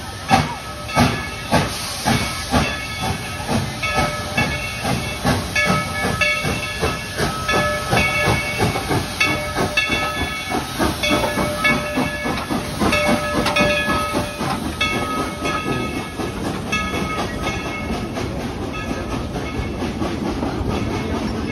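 Steam locomotive of the Dollywood Express chuffing past at close range, with hissing steam. Its exhaust beats come quicker as it gathers speed, and a bell rings over and over.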